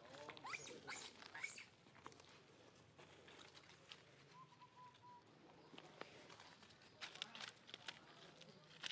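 Faint rustling and crackling of dry leaf litter as young long-tailed macaques move and forage in it, in clusters near the start and again near the end. A few short chirpy calls near the start.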